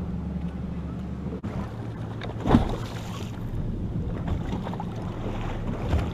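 Steady low hum of a bass boat's motor, with wind on the microphone. A short, louder noise comes about two and a half seconds in.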